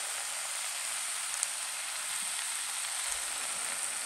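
Sliced sweet potatoes and onions sizzling steadily in a hot electric cook pan, with an occasional faint pop.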